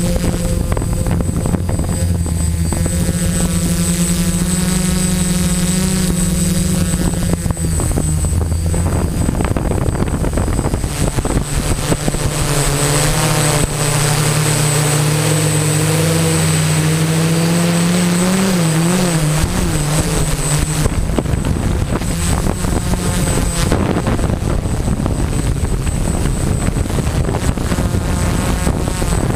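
Quadcopter's electric motors and propellers buzzing, heard from the camera on the craft. The pitch shifts as the throttle changes and wavers about two thirds of the way through, and a thin high whine runs underneath. In the last third a rough rushing noise covers the motor tones.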